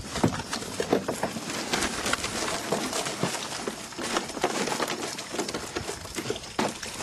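Continuous scratching, rustling and clicking as a mesh trap is handled and emptied into a plastic crate holding small live animals.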